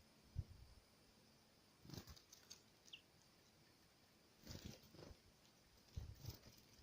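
Faint, scattered taps and rustles of small birds feeding at a feeder, with one short, high, falling chirp about three seconds in.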